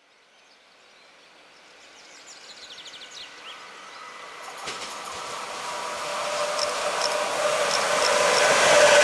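A DB Cargo Siemens Vectron electric locomotive hauling a freight train of coal wagons approaching, its running noise growing steadily louder with a steady whine. There is a single sharp knock about halfway through.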